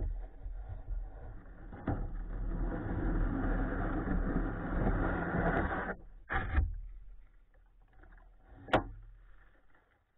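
Kayak hull scraping as it is dragged by its bow handle over grass and mud, stopping about six seconds in; two sharp knocks follow.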